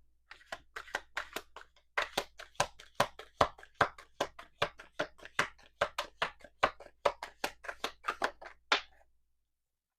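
Tarot cards being handled by hand: a run of light clicks and taps, several a second, that stops about nine seconds in.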